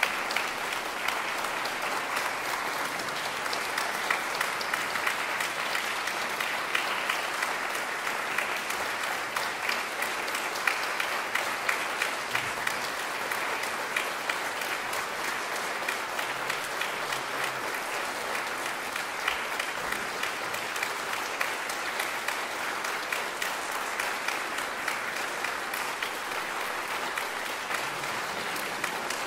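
Audience applauding steadily: a dense, even patter of many people clapping.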